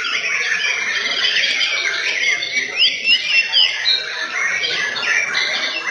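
Several white-rumped shamas (murai batu) singing at once in competition, a dense, overlapping stream of quick rising and falling whistles and trills.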